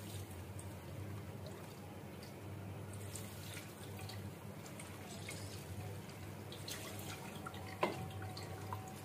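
Cooked mustard oil being strained: poured from a small bowl through a fine mesh strainer into an aluminium saucepan, trickling and dripping faintly. One light clink about eight seconds in.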